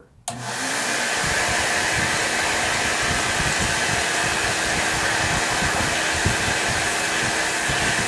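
Vintage Hoover Portable 2120 vacuum cleaner switched on just after the start, its motor spinning up within about a second and then running steadily. Rushing air with a steady hum underneath as the hose wand draws across a car mat.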